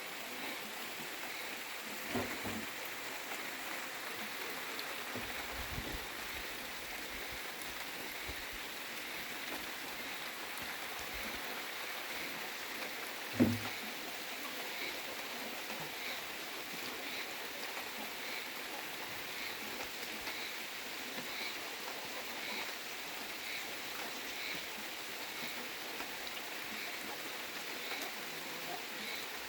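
Steady rain falling, an even hiss throughout. A single sharp thump stands out about 13 seconds in, with a smaller one about 2 seconds in, and a faint high call repeats about once a second through the second half.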